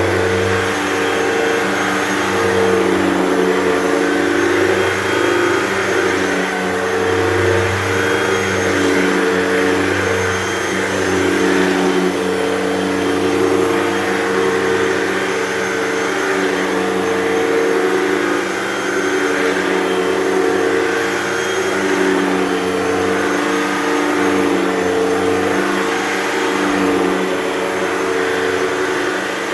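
Hoover Total Home Pet upright vacuum running steadily over a thick carpet. Its motor hum swells and dips a little every few seconds.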